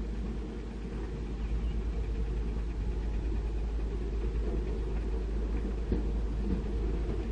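Diesel engine of heavy construction machinery running with a steady low rumble.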